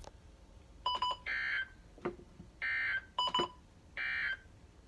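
Emergency Alert System end-of-message code after a Special Marine Warning: three short bursts of shrill, warbling digital data tone, each about a third of a second long and about a second and a half apart, with a few short clicks and beeps between them.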